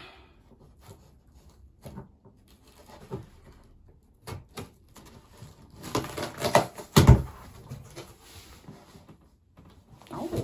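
Rustling and knocking of a cardboard shipping box and the things inside it as they are handled, with a heavier thump about seven seconds in.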